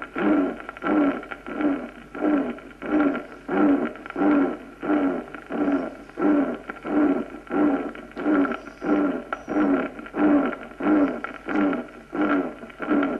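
Recorded heart sounds through a stethoscope, beating evenly about one and a half times a second, with the early diastolic, fading murmur of aortic regurgitation. This is plausibly the musical form of the murmur heard in valvular sclerosis, with a faint steady tone under the beats.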